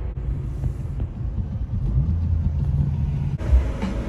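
Low, steady road and engine rumble inside a moving car. A hiss joins about three and a half seconds in.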